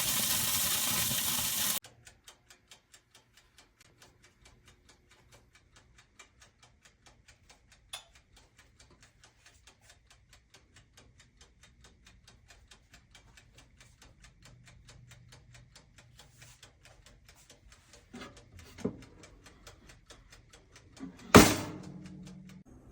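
Toaster oven's mechanical dial timer ticking steadily, about three ticks a second. It follows a loud hiss that cuts off suddenly, and a few knocks and one loud clack break in near the end.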